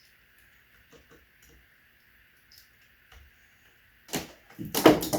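Hands working at a ceiling electrical box: a few small clicks, then about four seconds in a loud burst of rustling and scraping.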